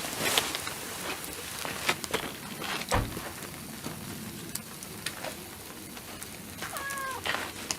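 Wood campfire crackling, with irregular sharp pops and a heavier knock about three seconds in. A short pitched squeak sounds near the end.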